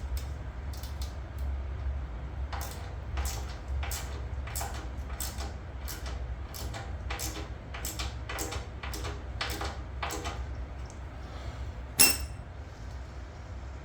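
Hand-tool work on steel mower-deck hardware: a run of light metallic clicks, about two a second, then one sharp metal clank that rings near the end.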